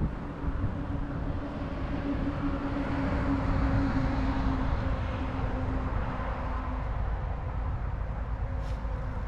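Distant engine noise of a passing vehicle: a steady hum with a low tone that swells to its loudest about three to four seconds in and fades away by about seven seconds, over a low wind rumble on the microphone.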